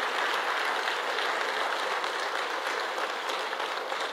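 An audience applauding steadily, a hall full of people clapping.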